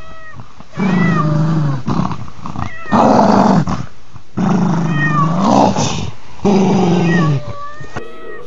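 A Pekingese dog and a cat squabbling over a bone, with drawn-out growling and yowling in about five bouts of a second or so each. Some bouts are harsher and louder.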